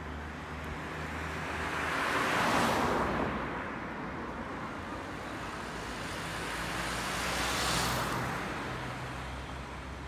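Road traffic passing: two vehicles go by, one about two and a half seconds in and another near eight seconds, each a rising and falling rush of tyre and engine noise over a steady low traffic hum.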